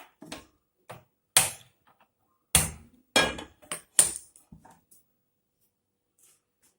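Sharp clicks and knocks of a gas stove being lit and a metal pan set on it, some strikes ringing briefly; about eight in the first five seconds.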